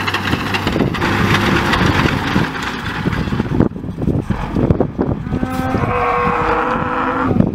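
MB Trac 1500 Turbo tractor's six-cylinder turbo-diesel engine running while it pulls a Krone loader wagon, with dense machinery noise. The sound changes suddenly a little past halfway, and in the last two seconds a steady tone of several pitches rises over the engine.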